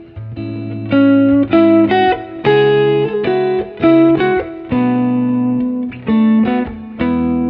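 Background music: an instrumental led by a guitar playing a melody of held notes.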